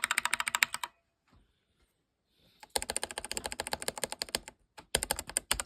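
Fast typing on a mechanical keyboard fitted with Akko CS Jelly Pink linear switches, in quick runs of key clacks: one short run at the start, a longer run after a pause of nearly two seconds, and another short run near the end.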